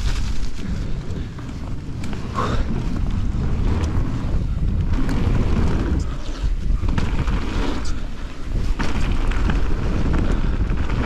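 Wind buffeting the microphone of a camera riding on a mountain bike at speed, over the rumble and rattle of the bike's tyres and frame on a dirt trail and then a wooden boardwalk, with scattered sharp clicks.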